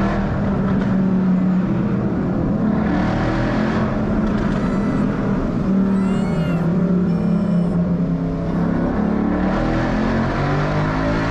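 2012 Ford Boss 302 Mustang's 5.0-litre V8 exhaust running under load, loud and steady, heard through open windows. The exhaust is straight-through, with aftermarket axle-backs and side-pipe resonator deletes.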